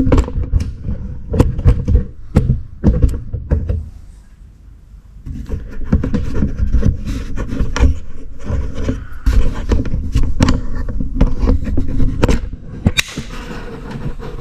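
Handling an old and a new car tie rod end: repeated clunks, knocks and scraping of the metal parts, over a rumble of handling noise and a steady low hum through the middle.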